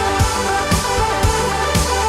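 Background music with a steady electronic beat, a low kick drum about twice a second under sustained synth tones.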